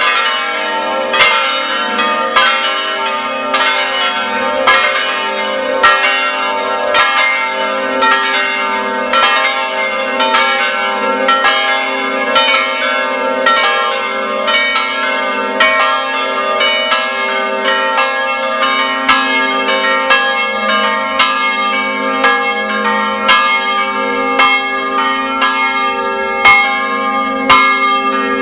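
Several church bells swung together in a semi-plenum, without the two smallest bells. Their strokes overlap in a continuous, irregular peal, about two strikes a second, over the steady hum of the bells.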